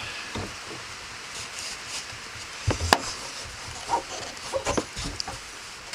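Scattered small clicks and knocks of a latch's mounting nut being tightened by hand, with one sharp click about three seconds in, over a steady hiss of rain.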